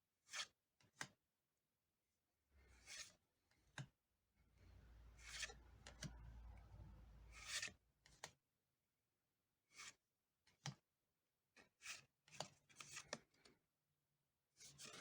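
Pokémon trading cards and booster-pack wrappers being handled: short, faint scrapes and rustles, with one longer rustle from about four to eight seconds in.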